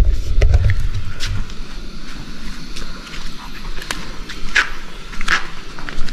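Footsteps scuffing over a rocky cave floor, with a low rumble of handling on the microphone in the first second and scattered clicks and scrapes, two of them sharper near the end.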